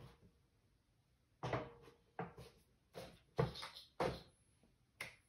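Rummaging: about six separate knocks and rustles of things being moved about while searching for a stored item, starting about a second and a half in.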